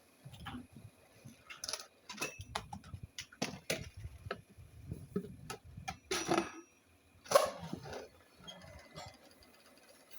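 Irregular clicks, knocks and short scrapes, with two louder scraping strikes a little past halfway; no steady motor is heard.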